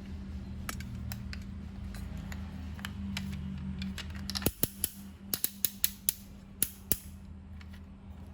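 A steady low hum, then a run of about a dozen sharp clicks, irregularly spaced, in the second half.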